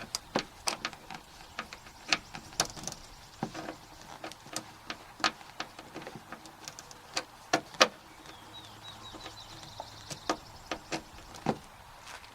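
Irregular sharp clicks and taps of a screwdriver working the Phillips screws out of a plastic tailgate trim panel, with a faint steady whine for about two seconds past the middle.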